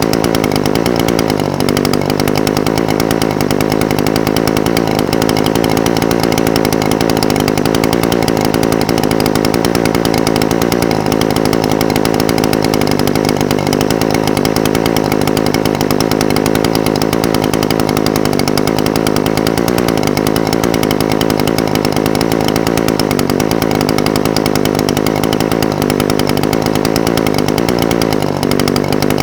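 Echo SRM-420TES brush cutter's two-stroke engine idling steadily, with only a slight waver in pitch.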